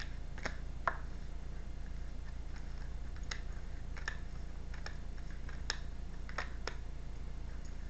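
A deck of tarot cards being handled by hand: a scattering of short, soft card clicks and snaps, about eight in all, over a steady low hum.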